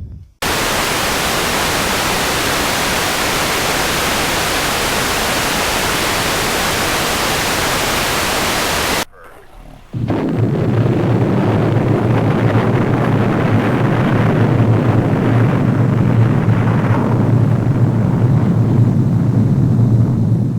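Loud, steady hiss of static that cuts off about nine seconds in; after a brief dip, a deeper rumbling noise with heavy bass takes over and fades near the end.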